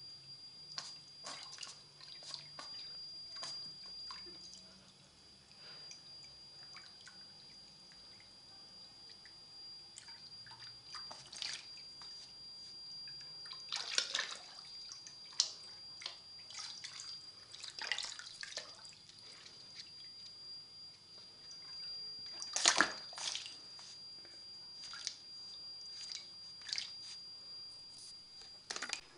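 Water from a garden hose trickling into a shallow plastic paddling pool, with irregular splashes and drips as a young mink paddles and drinks in the stream. The loudest splashes come about halfway and about three quarters through.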